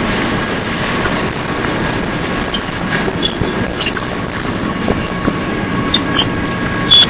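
Double-stack container train's cars rolling past close by: a steady rumble and rattle of steel wheels on rail with faint steady whining tones, and short high wheel squeals and sharp clanks now and then from about three seconds in.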